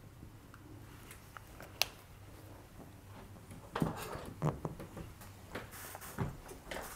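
Faint whiteboard work: a dry-erase marker writing, with a single sharp tap a couple of seconds in. Then a cloth rubbing the board and a few soft knocks and steps.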